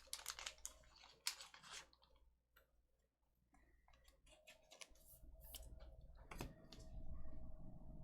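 Faint, scattered clicks and taps of trading cards and card sleeves being handled, with a sharper click about two thirds of the way through.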